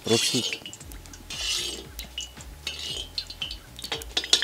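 Metal skimmer clinking and scraping against the inside of a hot kazan: a run of sharp, irregular clinks with short scrapes in between.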